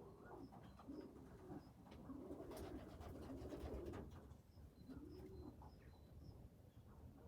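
Pigeon cooing quietly: a run of about six low coos, each rising and falling in pitch, which stop about five and a half seconds in.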